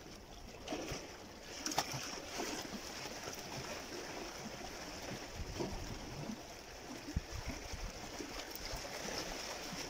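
Small sea waves washing and splashing against shore rocks, a steady wash with scattered light knocks and clicks.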